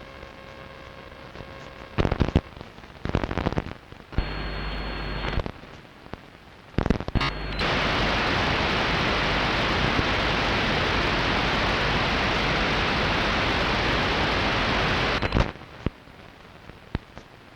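Longwave AM radio receiver picking up an unidentified interference signal: crackling static and short bursts, a buzzing burst about four seconds in, then a steady hiss for about eight seconds that starts and cuts off suddenly.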